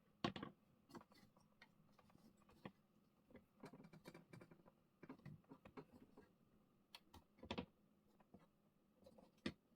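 Faint, scattered clicks and light taps as a CPU cooler is handled and set down onto its mounting points on a motherboard. The sharper clicks come about a quarter second in, around seven and a half seconds in, and just before the end.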